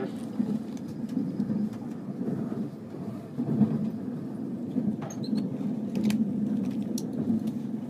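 Steady running rumble of a moving train heard from inside the passenger car, with a few faint sharp clicks in the second half.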